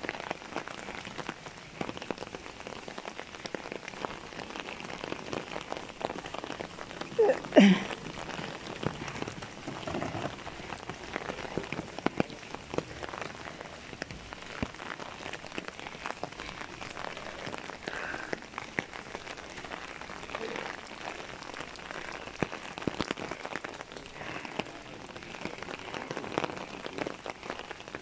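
Steady rain falling on an umbrella held overhead, a constant hiss full of small drop ticks. About seven and a half seconds in, a brief loud sound with a bending pitch stands out above the rain.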